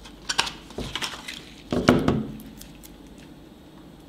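Small clicks and knocks of hard plastic being handled as a DJI Mavic Air remote controller is pulled from its black molded packaging tray, with one louder clatter a little under two seconds in. The sounds die away about halfway through.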